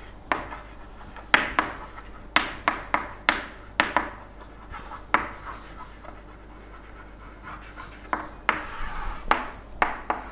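Handwriting: a series of sharp, irregular taps and short scratching strokes of a pen or chalk on a writing surface.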